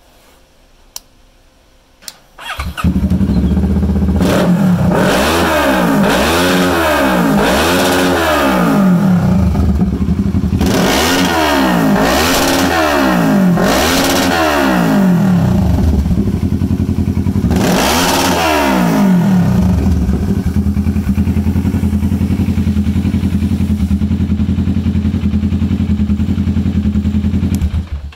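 Kawasaki EX650 (Ninja 650) parallel-twin engine starting about two and a half seconds in. It is revved in a run of quick throttle blips, then one longer rev, then settles to a steady idle and cuts off near the end.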